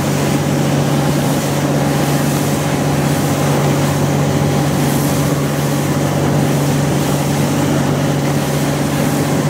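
Motorboat's outboard engine running steadily at speed while towing an inflatable tube, with wind and rushing water over it.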